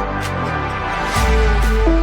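Electronic background music; a deep bass comes in a little past the middle, with a steady beat and a repeating synth melody.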